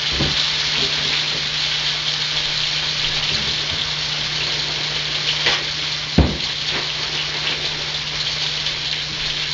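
Snow goose breasts frying in butter in a cast iron pan, a steady sizzle throughout, with a single sharp knock about six seconds in.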